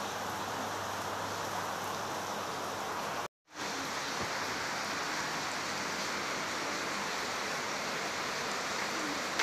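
Steady, even background hiss with no speech, broken by a brief dead silence just after three seconds in where the footage is cut.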